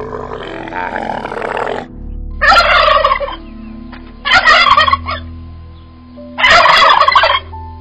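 A camel grunting for about the first two seconds, then a male turkey (tom) gobbling three times, each gobble under a second long, about two seconds apart.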